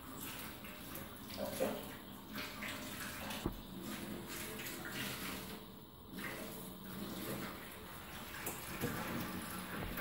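Handling noise: the clear plastic wrap on a new wristwatch rustling and crinkling as the watch is turned in the hand and strapped onto the wrist, with one sharp click about three and a half seconds in.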